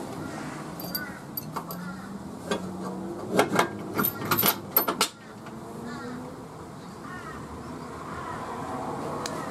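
Metal clinks and knocks of tools and suspension hardware while a new lower control arm is fitted under a car, with a cluster of sharp knocks three to five seconds in, over a steady background hum.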